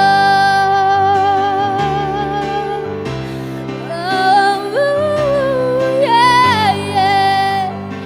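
A young woman singing a pop ballad over instrumental accompaniment: she holds one long high note with vibrato for about three seconds, then sings short phrases that slide up and down in pitch over sustained low chords.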